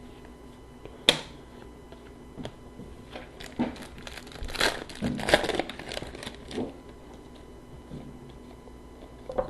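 Hockey card pack wrapper crinkling and tearing as it is opened by hand: a sharp snap about a second in, then a few seconds of crinkling and rustling.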